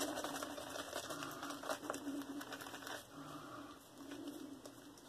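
Synthetic shaving brush working wet lather on the face: a faint, quick scrubbing of soapy bristles with many fine crackles.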